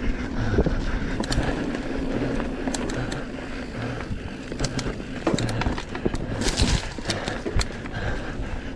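Electric mountain bike riding fast down a leaf-covered dirt trail: tyres rumbling over the ground, with frequent sharp knocks and rattles from the bike over bumps.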